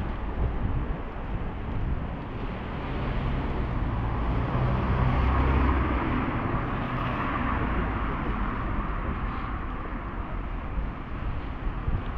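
Street traffic on wet asphalt: a steady hiss of tyres and engine noise that swells as a vehicle goes by about halfway through, then settles back.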